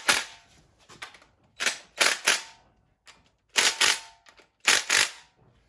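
Click-type torque wrench clicking on the oil pump bolts as each reaches its set torque: sharp metallic clicks in pairs and threes, about a second apart.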